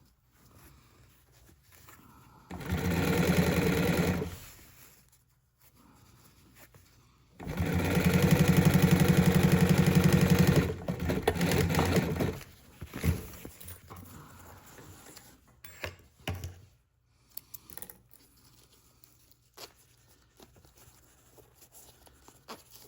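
Sewing machine stitching a zipper into an armrest cover, in two runs. A short burst of stitching comes about three seconds in, and a longer run of about five seconds starts near seven and a half seconds, followed by a few faint clicks and handling noises.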